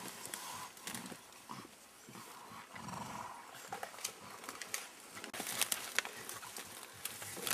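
Mountain gorillas feeding in dense leafy vegetation: leaves rustling and stems snapping, with crackles that thicken from about five seconds in. A low grunt comes about three seconds in.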